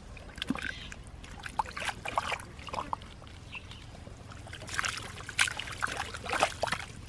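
Hands working in the mud and shallow water of a small muddy pool: irregular splashes, sloshes and squelches, busiest a little after the middle.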